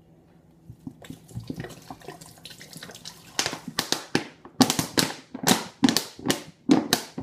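Water running at a kitchen sink, then a plastic trigger spray bottle pumped over and over, squirting water in short bursts about two or three times a second, as the bottle is rinsed out and filled with water.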